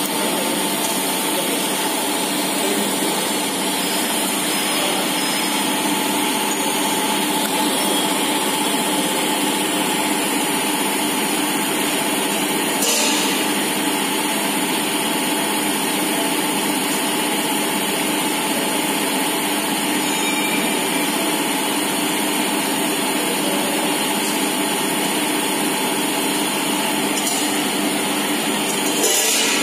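Industrial machinery running with a steady hum made of several held tones. Two short hisses rise over it, one about halfway and one near the end.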